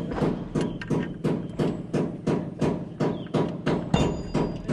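Rapid, evenly spaced knocking, about three to four strokes a second, that stops near the end.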